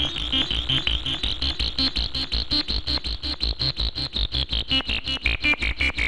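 Eurorack synthesizer patch built on a 3340-chip VCO, playing a fast sequenced pattern of short notes, about seven a second, over a pulsing low bass. A bright high edge in the tone slides down in pitch about five seconds in.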